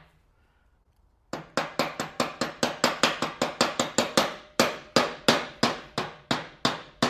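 Steady run of quick metallic hammer taps, four or five a second, starting about a second in, seating a bearing back onto the end of an angle grinder's armature shaft.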